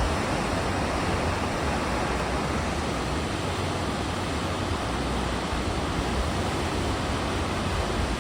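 Sea water rushing past a moving cruise ship, a steady wash of noise with a low rumble underneath.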